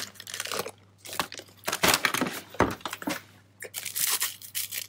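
Thin plastic wrapper crinkling and tearing in short, irregular bursts as a drinking straw is unwrapped.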